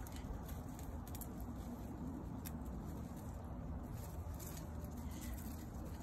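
Faint scattered rustles and ticks of lemongrass leaves being handled and squeezed, over a steady low rumble.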